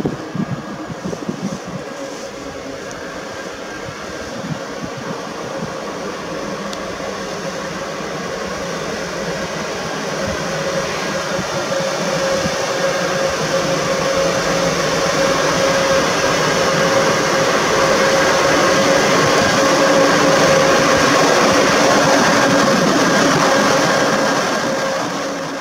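PKP Intercity electric locomotive hauling a passenger train approaching slowly along the platform, its steady hum and rumble of wheels on the rails growing steadily louder as it draws near.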